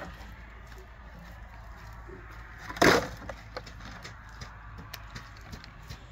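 A single short crash of hard objects knocking together about three seconds in, with a few faint knocks before and after.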